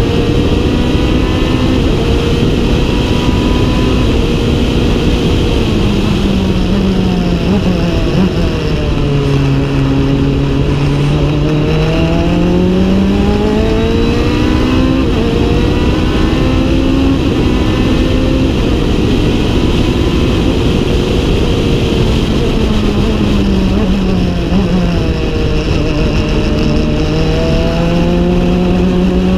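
Onboard sound of a Norma M20F sports prototype's engine at racing speed, heard inside the open cockpit with steady road and wind noise. The engine note drops twice as the car slows and then climbs again as it accelerates away.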